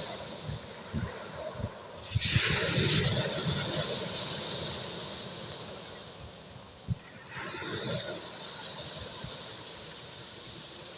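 Sea waves breaking on a shore. A large wave crashes about two seconds in and its wash slowly fades, then a smaller wave breaks about seven seconds in.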